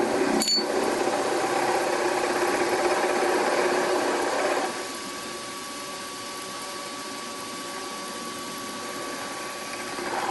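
Milling machine spindle running a 6.5 mm twist drill down into a metal plate, drilling the undersized hole ahead of a 5/16 in reamer. The cutting noise drops away about four and a half seconds in, leaving the spindle running steadily with a thin steady tone.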